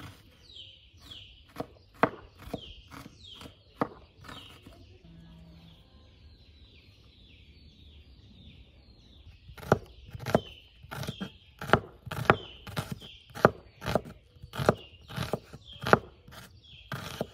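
Kitchen knife chopping an onion on a wooden cutting board, sharp knocks about two a second. They stop for several seconds mid-way and start again about ten seconds in, louder.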